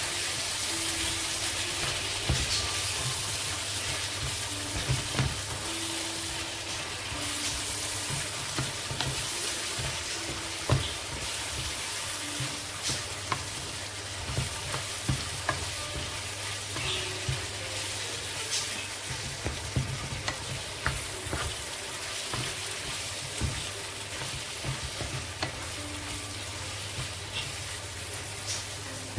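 Minced beef and finely chopped onion sizzling in olive oil in a frying pan. They are stirred throughout, with scattered clicks and scrapes of the utensil against the pan.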